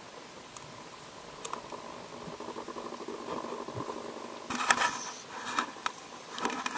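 Underwater ambience heard through a camera housing: a faint hiss with scattered clicks and a faint hum. About four and a half seconds in, louder crackling and knocking noise begins.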